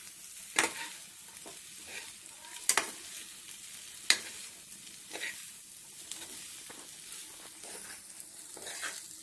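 Noodles and egg frying in a kadai with a steady sizzle while being tossed with a metal fork and spoon, the utensils clacking sharply against the pan a few times, the loudest about half a second, near three seconds and near four seconds in.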